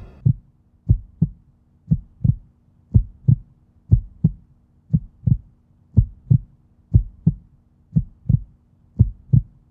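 Heartbeat sound effect: paired low thumps, lub-dub, about once a second, over a faint steady low hum.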